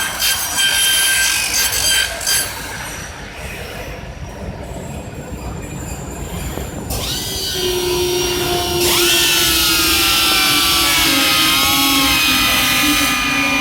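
UPVC window production machinery, most likely the corner cleaning machine's cutter motors: mechanical clatter at first, then about seven seconds in a motor spins up with a rising whine, and from about nine seconds the cutters run with a loud, high whine of several tones that slowly drops in pitch.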